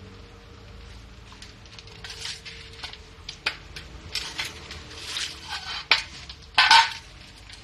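Dogs eating dry kibble from a metal tray: irregular clinks and rattles of kibble and muzzles against the metal. They get busier from about two seconds in, with the loudest clatter near the end.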